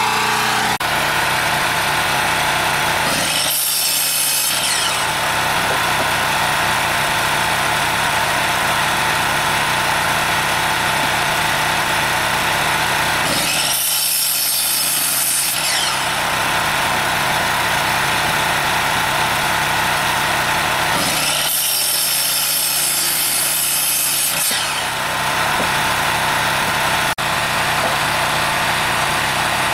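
Electric miter saw cutting through small branches for firewood, three cuts of a few seconds each, about three seconds in, at fourteen seconds and near twenty-two seconds. A small engine drones steadily underneath throughout.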